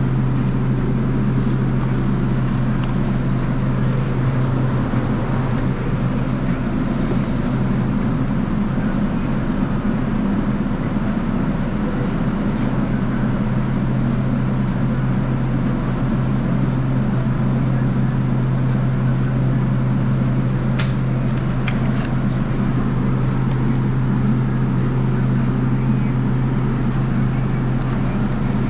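Steady low machine hum of a walk-in dairy cooler's refrigeration running. A few light clicks and taps from handling plastic egg cartons come about two-thirds of the way in and again near the end.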